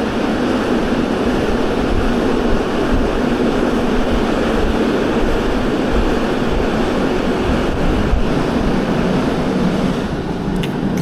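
Moving passenger train, a steady rumbling rush of running noise with no break in it. A few faint clicks come near the end.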